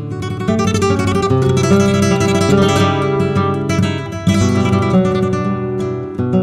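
Solo flamenco guitar playing a taranta: quick runs of plucked notes over ringing bass notes, with a sudden strong chord just after four seconds in.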